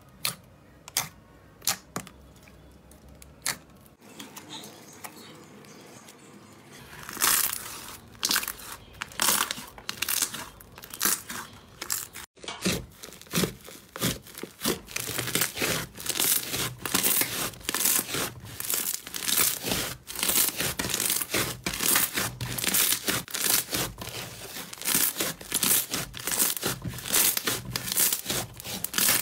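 Hands squeezing dark, glossy clear slime in a plastic tub make sparse wet pops and clicks that grow more frequent. After a cut about twelve seconds in, hands stretching and kneading thick white slime make dense, continuous crackling and tearing.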